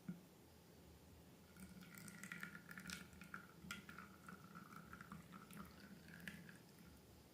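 Faint sticky clicks and crackles of slime being squeezed and worked by hand, running for a few seconds from about one and a half seconds in, over a low steady hum.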